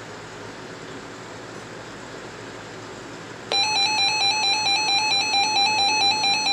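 A steady low hiss of radio static. About halfway through, a loud electronic alert tone starts suddenly: a buzzy beep stepping between two close pitches about four times a second.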